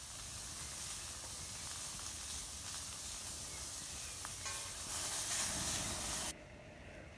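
Meatballs frying in a stainless steel pan, a steady sizzle that grows louder about five seconds in and cuts off suddenly just after six seconds.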